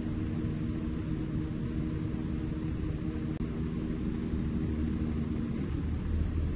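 Diesel engine of a Fuso self-loader truck running steadily as the loaded truck creeps along, a low hum that shifts in note near the end.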